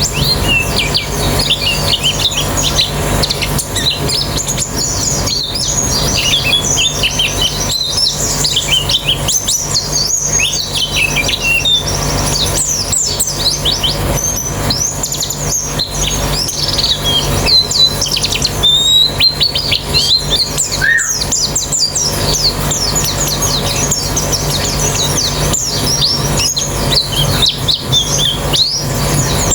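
A colony of white-eyes (pleci) singing together: a dense, overlapping chorus of rapid, high twittering phrases with no pause. A steady low hum runs underneath.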